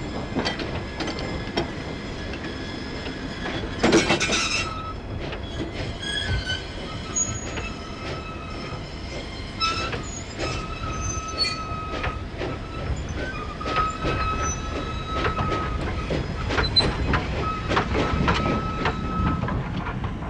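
Empty coal wagons being shunted slowly over colliery sidings: wheel flanges squeal on and off in high steady tones over a low rumble, with repeated clanks and knocks from the wheels and couplings, the loudest clank about four seconds in.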